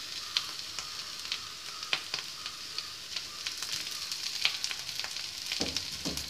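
Onion and spice masala with boiled potato sizzling in a nonstick frying pan, a steady high hiss with scattered sharp crackles as the potatoes are crumbled into it. Two soft knocks near the end.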